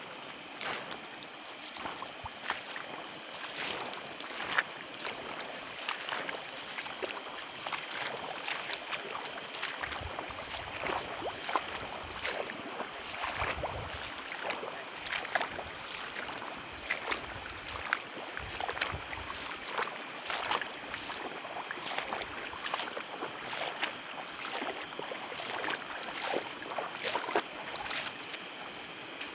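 Irregular sloshing and splashing of footsteps wading through shallow water and wet vegetation, a quick uneven series of splashes throughout.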